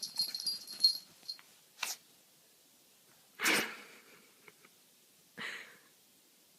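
A puppy sneezing three times: a small sneeze about two seconds in, a bigger one in the middle and a smaller one near the end. A jingling rattle comes before them during the first second, and it is the loudest sound.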